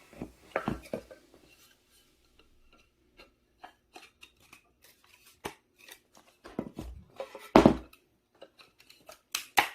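Scattered light clicks and knocks of objects being handled in a small room, with a louder knock about seven and a half seconds in and another near the end.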